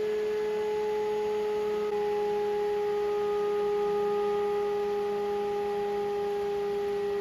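Electric radiator cooling fan, set up as a sucker fan, running at a steady speed: a continuous humming whine from its motor and blades.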